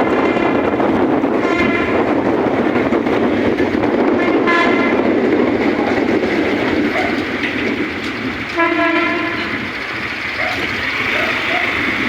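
A train running with a steady rail rumble and its horn sounding three short blasts, about a second and a half, four and a half and nine seconds in; the last blast is the strongest.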